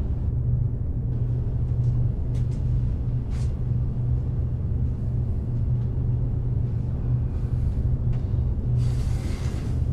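Low, steady rumbling drone of film sound design. A few faint brief swishes come a couple of seconds in, and a soft hiss swells near the end.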